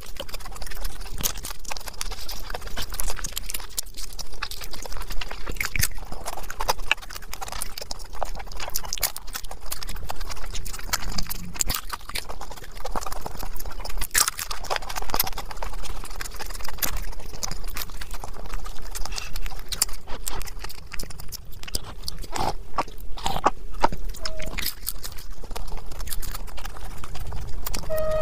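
Close-miked chewing of crispy fried samosas: a steady run of irregular crunches and mouth clicks.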